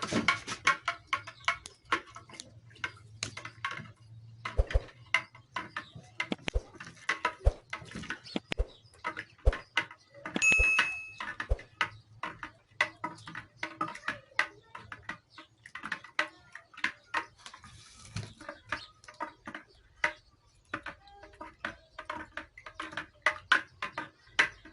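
A spoon stirring salt water to dissolve the salt, making irregular clinks and scrapes against the container, with one ringing clink about ten seconds in.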